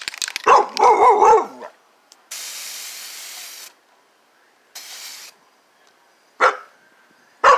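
An aerosol can of gray weld-through primer sprays a steel patch panel in two hissing bursts, one about a second and a half long, then a short one. A dog barks loudly at the start and twice briefly near the end.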